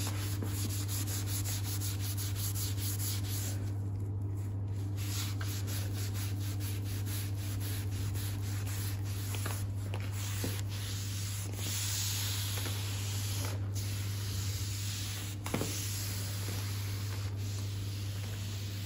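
Microfibre cloth scrubbing Bar Keepers Friend powder over a quartz worktop: a gritty, abrasive rubbing in quick back-and-forth strokes, with a short pause about four seconds in, over a steady low hum.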